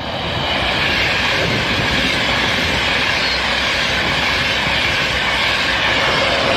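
Train passing at speed close by: a loud, steady rushing noise that builds over the first second and then holds.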